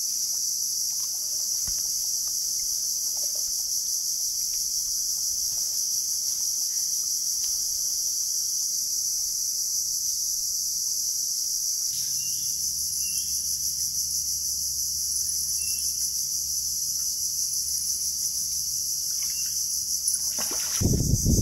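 Steady, high-pitched chorus of insects shrilling without a break. A louder rush of low noise comes in right at the end.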